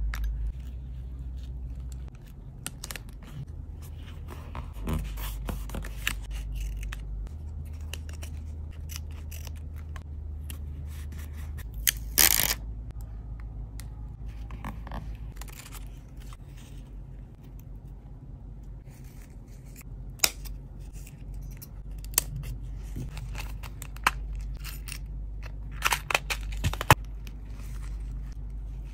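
Close-up paper crafting on a mini scrapbook: paper sliding, folding and being tucked in, with pen scratching on a page. It comes as a scatter of short scratches, taps and rustles, loudest about twelve seconds in and in a cluster near the end, over a steady low hum.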